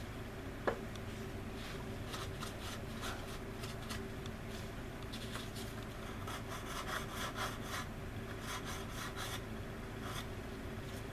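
Sanding stick rubbed over the leading edge of a resin model aircraft wing in groups of short, quick scratchy strokes, smoothing the seam. A single sharp click comes about a second in, over a steady low hum.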